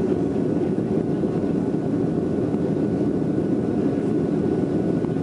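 Steady, low rumble of engine and airflow noise inside a passenger airplane's cabin as it climbs after takeoff.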